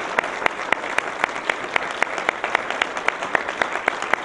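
Audience applauding, with one pair of hands close by clapping loudly and evenly about four times a second over the crowd.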